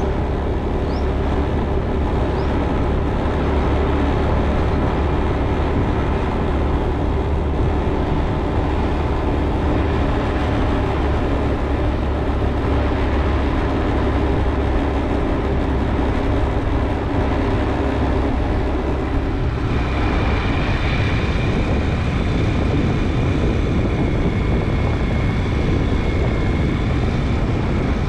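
Steady engine and road rumble of a vehicle being driven along a road. About twenty seconds in, the sound changes and a thin high whine joins it.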